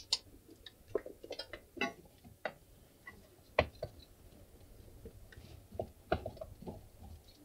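Scattered, irregular clicks and knocks of objects being handled on a workbench, the loudest about three and a half seconds in and again about six seconds in.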